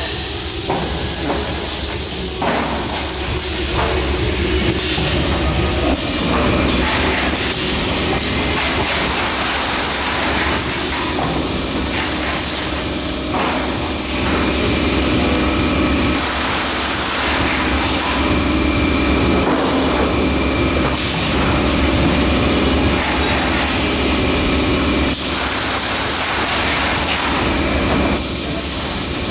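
Pneumatic automatic case erector and carton conveyor line running: a steady machine din with hissing air and occasional knocks as cartons are formed and pushed along the rollers.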